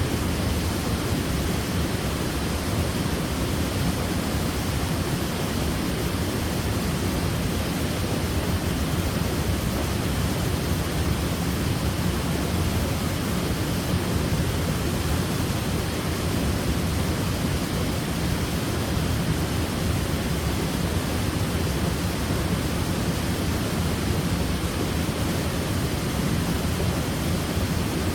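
Waterfall crashing into a pool: a steady, unbroken rush of water, deep and full, with no breaks or changes.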